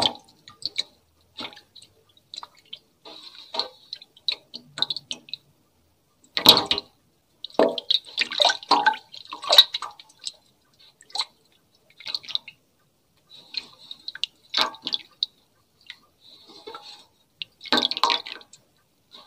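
Irregular wet squishing and dripping sounds, short crackles coming and going with brief pauses, made as ASMR foley to imitate hair being washed.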